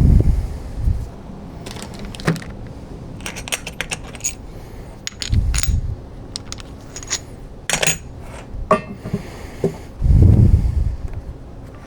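Small metal objects clinking and clattering: a string of sharp clicks with brief metallic ringing, with dull low thumps at the start, around the middle and near the end.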